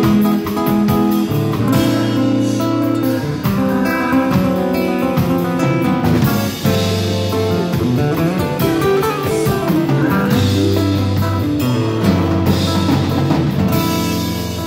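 Amplified nylon-string electric-acoustic guitar playing a flowing run of plucked single notes and chords, with drums behind it.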